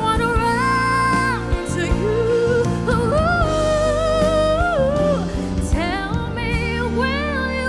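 A solo singer holds long notes with vibrato, stepping between pitches, over a live band backing of sustained chords and bass.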